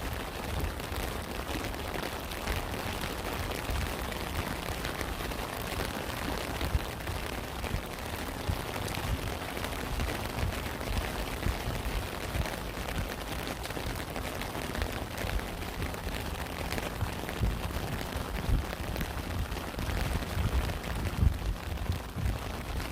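Steady rain falling, with many close drop hits pattering on a surface over a dense hiss and a strong low rumble underneath.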